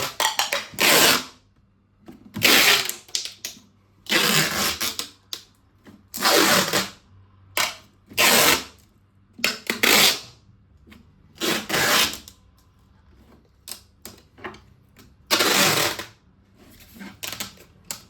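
Adhesive tape being pulled off the roll in a series of loud rips, about eight pulls each under a second long, as it is wrapped around cardboard corner protectors. Small handling clicks and rustles come between the pulls.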